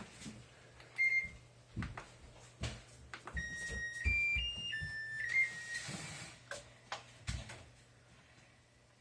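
Hitachi BW-DX120B washing machine's control panel beeps once, then plays a short electronic tune of stepped high tones, with several sharp knocks and clicks around them.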